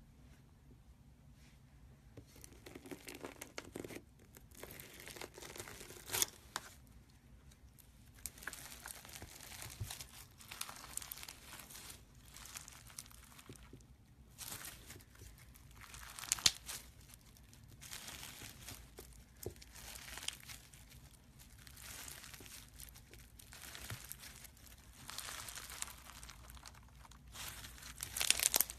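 Crunchy clear pink slime full of small clear beads being squeezed and stretched by hand, crackling and crinkling in irregular faint clusters with a few louder bursts, the loudest near the end.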